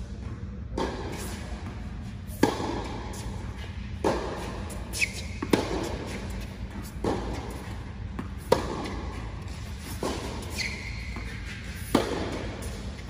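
Tennis rally: sharp racquet strikes on a tennis ball and ball bounces about every one and a half seconds, the loudest hits coming every three seconds or so, each echoing in a large indoor court hall. Short sneaker squeaks on the hard court come twice, about five and ten seconds in.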